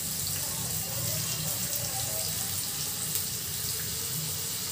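Finely chopped onions sizzling steadily in hot oil in a pan, with an even frying hiss.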